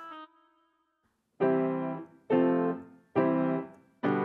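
Piano playing four short chords about a second apart with the sustain pedal released, so the dampers cut each chord off quickly instead of letting it ring.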